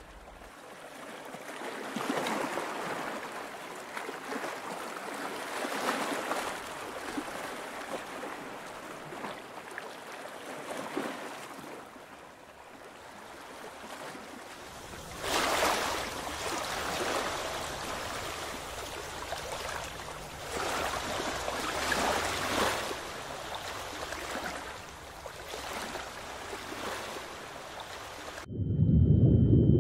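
Water washing and lapping in irregular swells that rise and fade every few seconds. Near the end it cuts abruptly to a louder low rumble with a thin, steady high tone.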